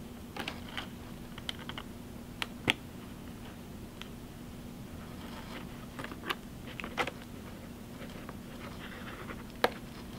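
Scattered sharp clicks and light scratching of a hot glue gun being worked along a foam-board seam, its nozzle dragging over the paper-faced foam, over a steady low hum.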